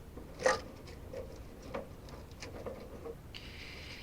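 Scattered small clicks and taps from handling wires and tools, the sharpest about half a second in, with a short rustle near the end.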